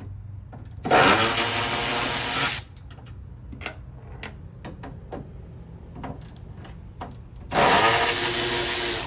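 Milwaukee M12 cordless ratchet running in two bursts of under two seconds each, winding up in pitch at the start of each, as it spins out the two 10 mm bolts holding a tail light. Small clicks between the bursts.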